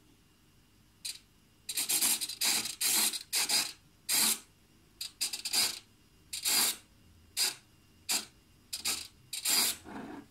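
Hobby micro servo driving a 3D-printed gear train and rack, moving in about a dozen short, jerky bursts of motor and gear noise with brief pauses between, starting about a second in. The stop-start motion comes from the WiFi control sending position updates only about every 100 milliseconds.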